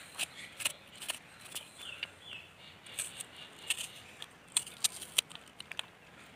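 Kitchen knife cutting a red onion held in the hand, a string of crisp, sharp cuts at an uneven pace.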